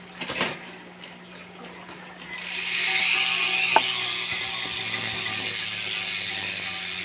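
Bicycle rear wheel spinning with its freehub ratchet buzzing steadily and fast, starting about two and a half seconds in, with one sharp click partway through. A few light clicks come in the first half-second.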